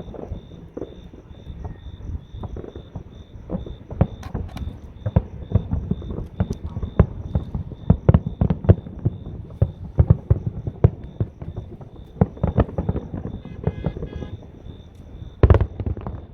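Fireworks going off in a rapid, irregular string of booms and cracks, thickest in the middle, with one heavy boom near the end. Crickets chirp steadily underneath.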